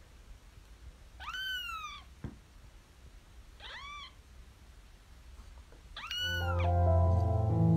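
Kitten meowing three times, short high mews that rise and fall in pitch, a couple of seconds apart. Background music comes in near the end.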